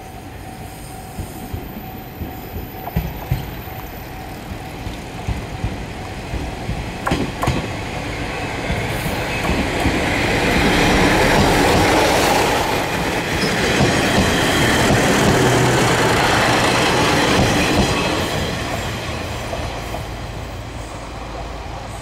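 A two-car KiHa 37 and KiHa 38 diesel railcar train approaching and passing close by. Wheels click over the rails as it nears, then the engines and running gear rise to a peak in two swells as each car goes past, and the sound fades as the train moves away.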